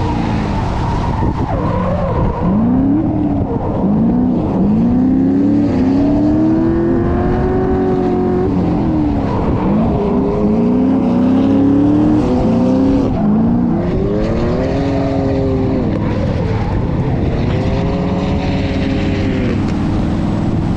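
BMW F80 M3's twin-turbo inline-six revving up and falling back over and over while drifting, with tyre noise underneath.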